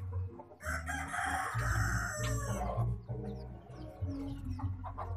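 A chicken gives one loud call about two seconds long, beginning about half a second in, followed by softer clucking.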